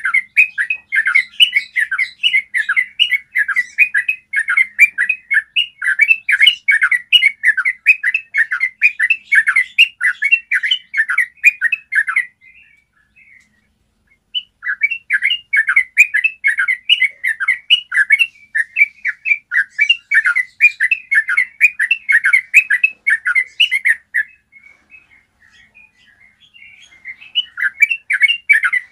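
Yellow-vented bulbul singing its long rolling song: quick chattering notes, about four a second, strung into phrases ten seconds or so long. The song breaks off about twelve seconds in and again about twenty-four seconds in, then starts again.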